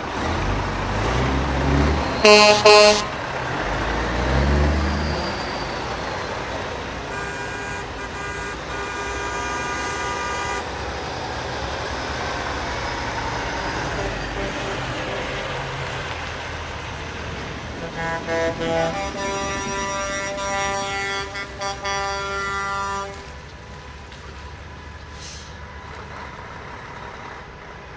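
Semi trucks driving past with diesel engines rumbling and sounding their air horns: a short loud blast about two seconds in, a longer held blast around eight to ten seconds, and a string of repeated toots near the two-thirds mark, after which only a quieter engine drone remains.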